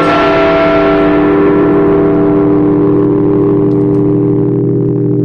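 Large church bells in the bell chamber, struck by hand from a lever keyboard. A last stroke lands right at the start, then the bells ring on undamped: the bright upper tones die away over about three seconds while the deep hum holds steady.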